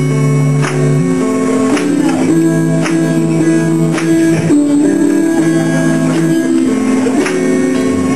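Guitar music: chords strummed in a steady rhythm, changing about every second.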